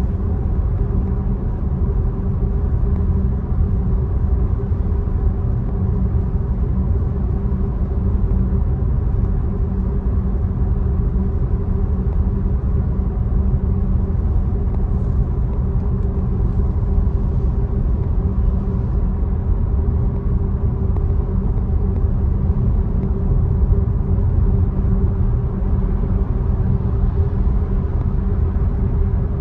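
Steady low road rumble of a Tesla driving, with a few faint steady tones over it.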